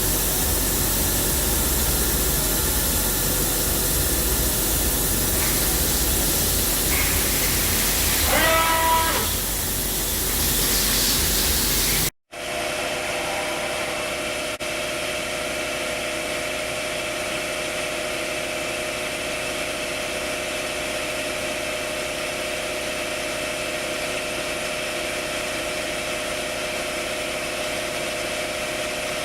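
Junker Grindor CNC cylindrical grinding machine running: a steady hiss with a low hum and a brief rising whine, then, after an abrupt cut, a steady machine hum with several held tones.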